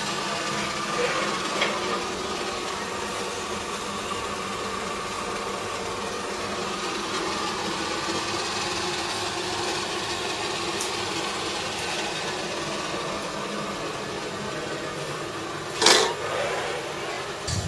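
Steady hum and hiss of running glassblowing studio equipment, with one short loud rushing burst near the end.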